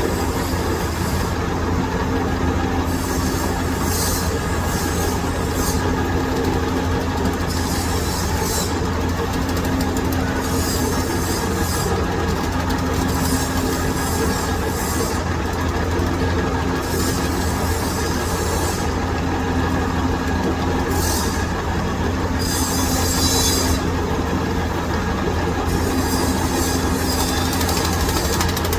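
Metal lathe running, turning hardened steel with a boron nitride cutting insert: a steady machine hum with an on-and-off tone, and bursts of higher cutting noise every one to two seconds.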